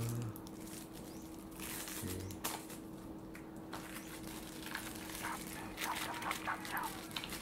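A small item in a plastic bag being handled and unwrapped: plastic crinkling and light clicks, mostly in the second half. There are two short hummed voice sounds near the start, over a faint steady hum.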